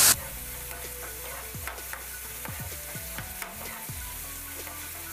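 A steel spoon stirring rabodi in frying masala in a kadhai, with quiet sizzling and scattered small scraping clicks.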